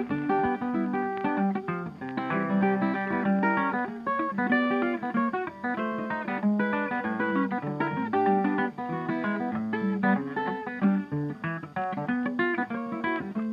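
Background music: acoustic guitar playing a quick run of plucked and strummed notes at an even level.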